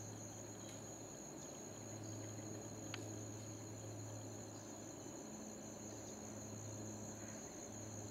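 Steady high-pitched chirring of insects, with a faint low hum underneath and one small click about three seconds in.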